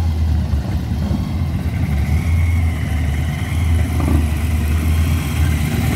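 Holden LJ Torana's engine rumbling low and steady as the car drives slowly in.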